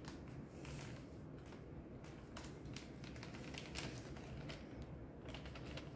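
Faint crinkling and light clicking of a torn paper seasoning packet being squeezed and shaken out over a bowl, with the powder falling onto raw chicken.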